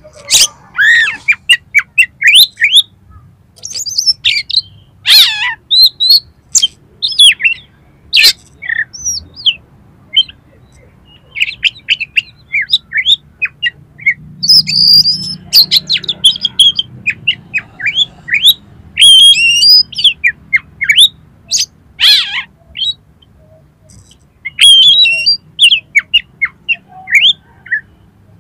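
Oriental magpie-robin (kacer) singing: a fast, varied run of short whistles and chirps in clusters, with brief pauses between phrases.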